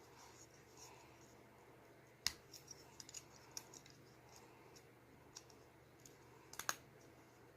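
Plastic Lego bricks clicking and tapping as they are handled and pressed together: a sharp click about two seconds in, scattered light ticks after it, and a quick cluster of clicks near the end.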